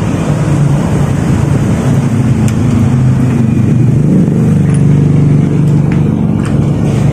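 A motor vehicle engine running steadily, with a few faint clicks over it.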